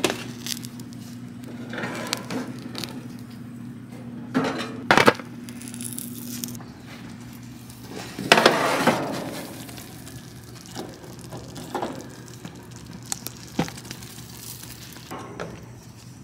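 Kitchen clatter: scattered knocks and clinks of dishes and utensils, over a low steady hum. The loudest are two sharp knocks about four to five seconds in and a longer clatter about eight seconds in.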